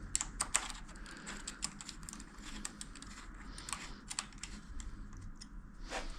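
Irregular light clicks and taps of a tool and small bike parts being handled while a brake lever is fitted and tightened onto a mountain bike handlebar, densest in the first second.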